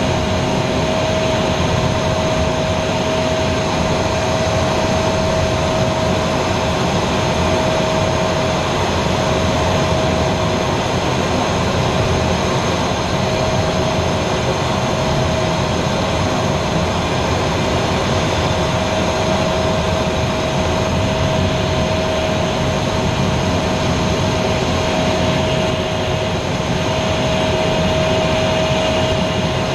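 Aero L-29 Delfin jet trainer's single turbojet engine running steadily, heard from inside the cockpit together with rushing airflow, a constant whine running through it.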